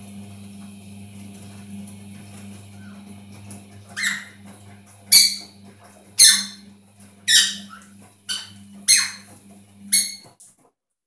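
Pyrrhura conure squawking: seven loud, harsh calls about a second apart, starting about four seconds in, each dropping in pitch. A steady low hum runs underneath until the sound cuts off near the end.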